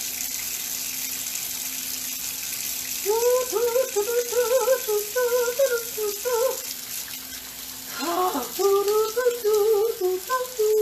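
A woman humming a wavering tune in two phrases, the first about three seconds in and the second starting near the end, over a steady hiss.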